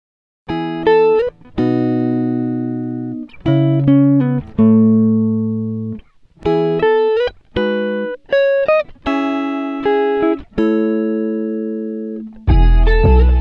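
Background music: a plucked-string melody, each note ringing out and fading, with a fuller accompaniment and bass coming in near the end.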